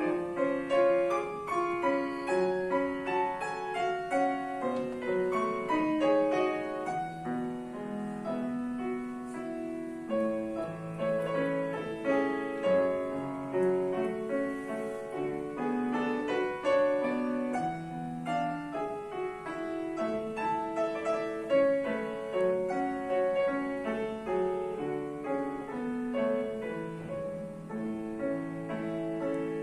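Piano playing a classical piece: a continuous flow of notes with no pauses.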